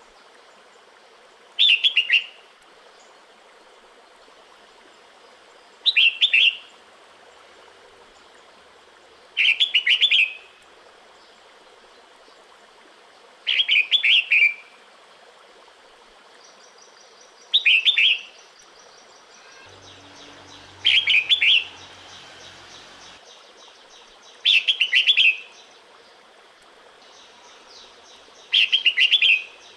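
Female red-whiskered bulbul giving her breeding-season call to males: a short burst of quick chirpy notes, repeated eight times about every four seconds over a faint steady hiss.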